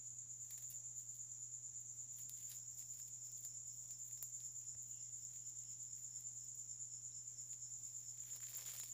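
A steady, high-pitched insect trill with a gently pulsing loudness, over a low steady hum. Faint crackles of bubble wrap being handled come through it.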